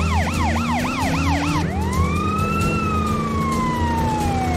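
Police car siren: a fast warbling yelp that switches, a little under two seconds in, to a single slow wail that rises and then falls away, over a low steady hum.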